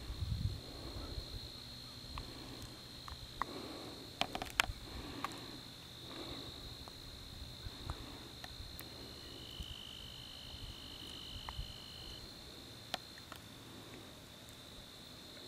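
Insects trilling steadily at a high pitch, with a second, slightly lower trill joining for about three seconds past the middle. Under them a low rumble and a few sharp clicks, the handling noise of a camcorder held by hand.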